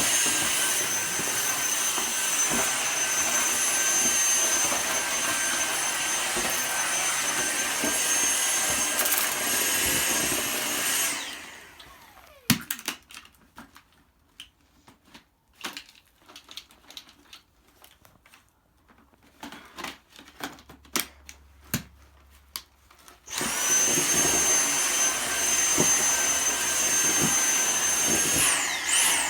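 Dyson vacuum cleaner running with a steady high motor whine, switched off about eleven seconds in. Scattered clicks and knocks follow. It starts again around twenty-three seconds, and near the end its whine swings up in pitch before it cuts off and winds down. The owner takes this for the machine clogging.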